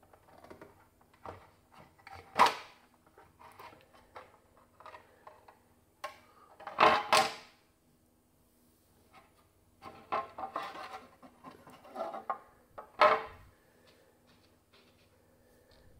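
Plastic dust bin and filter of a Vorwerk Kobold VR300 robot vacuum being opened and handled: a series of clicks and short plastic scrapes and rattles as the dust-clogged filter is taken out. The loudest are a sharp click about two seconds in, a longer rattle around seven seconds and a snap near thirteen seconds.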